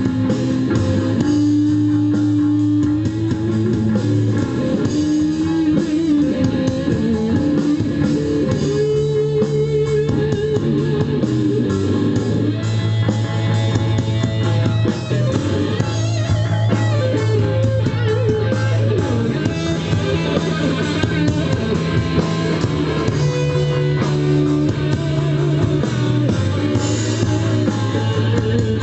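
Blues band playing an instrumental passage between verses: lead guitar with held and bent notes over bass guitar and drums.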